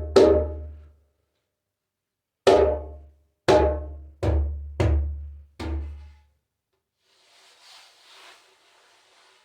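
A calfskin-headed djembe with a Dimba wood shell being struck by hand. Each hit has a deep boom and a ringing tone that dies away quickly. One hit comes at the start, then after a pause five more come about a second apart, followed by faint rustling near the end.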